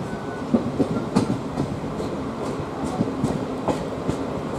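LHB passenger coach wheels running over the track, a steady rumble with irregular sharp clicks and knocks as they cross rail joints and points, heard from the open coach doorway.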